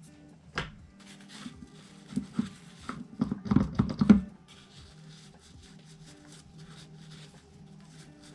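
A sharp knock about half a second in, then a run of clacks and taps that is loudest near four seconds, as a nail wipe is pressed down onto the pump top of a dispenser bottle on a table.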